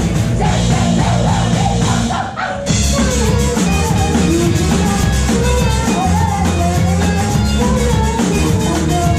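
Fast punk-rock song played live, with distorted electric guitar, bass, drums and a singing voice. The music drops out briefly about two and a half seconds in, then the full band comes back in.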